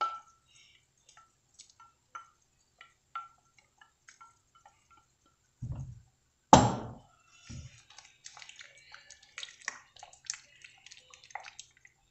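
Pot of shrimp broth simmering, with scattered small bubbling pops and drips. About six and a half seconds in there is a loud sharp knock between two dull thumps, then a wooden spoon stirring and scraping in the pot, a dense run of small clicks through the last few seconds.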